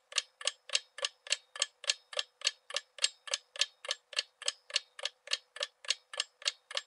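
A clock ticking: sharp, even ticks at a quick steady rate of about three and a half a second.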